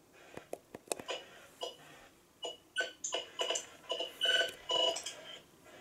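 Buttons clicking on a Vector VEC438 weather alert radio as its settings are worked through, then about seven short, high electronic beeps in quick succession from about halfway through as the menu is stepped along.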